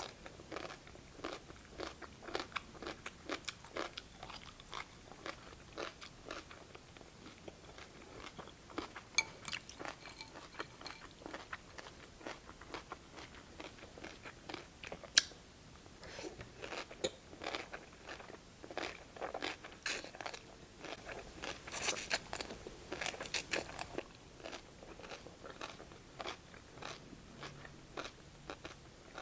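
Close-up crunching and chewing of crisp cucumber slices from cold cucumber soup: many short, crisp crunches throughout, with busier bursts of chewing near the end.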